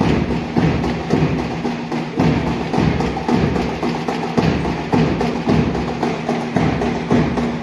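Drums beating a steady marching rhythm: a strong beat about once a second with lighter strokes between.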